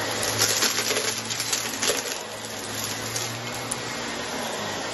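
Vacuum cleaner running on a carpet rug, with a rapid crackle of crumbs and grit being sucked up through it for the first two seconds, then a steadier motor hum.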